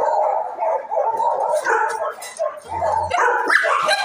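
Shelter dogs barking in their kennel, one call after another with only brief gaps.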